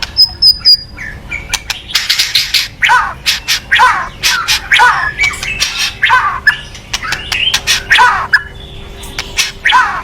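White-rumped shama giving its harsh rattling 'kretekan' calls: clusters of sharp clicks and rasps mixed with quick whistled notes sliding down in pitch, repeated about once a second. This is the agitated call that keepers play to rouse a rival shama.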